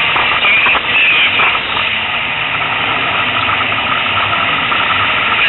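Engine and road noise inside a competition car's cabin, loud and steady.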